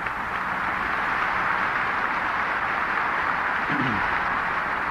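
Audience applauding steadily for several seconds.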